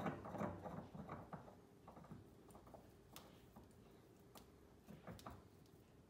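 Faint clicks and light knocks of metal kitchen-faucet parts (a Premiere Sonoma pull-down faucet) being handled and fitted back together. The clicks come quickly at first, then only a few scattered sharp clicks follow.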